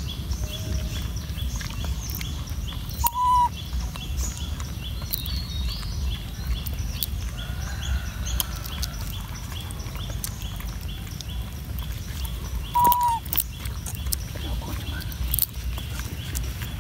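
Puppy lapping and licking milk from a plastic container, with scattered wet clicks over a steady low rumble. A short high-pitched call sounds twice, about three seconds in and near thirteen seconds, and a fast, even chirping runs in the background.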